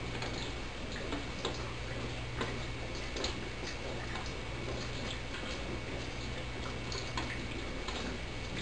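Scattered light ticks and clicks at irregular spacing over a steady low hum.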